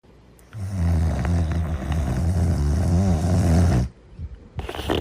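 A sleeper snoring: one long, low, rumbling snore that wavers in pitch and cuts off abruptly just before four seconds in. The next snore begins near the end.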